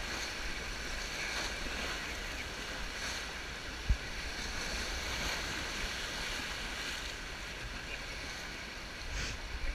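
Whitewater rapids rushing steadily around an inflatable raft, with a single sharp low thump about four seconds in.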